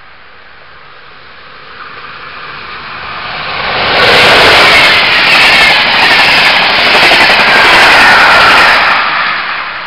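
A DB class 111 electric locomotive hauling regional-train coaches passes close by. The rolling wheel-and-rail noise swells from about two seconds in, stays loud for about five seconds as the locomotive and coaches go by, then falls away near the end.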